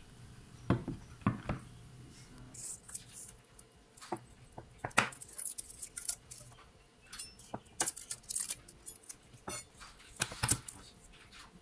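Knocks as a wooden cutting board is set down, then irregular taps and clicks of a chef's knife cutting garlic cloves on the board.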